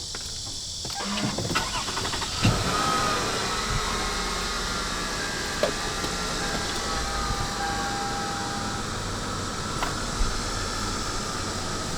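Car engine cranked and started about a second in, then idling steadily with the air conditioning blowing.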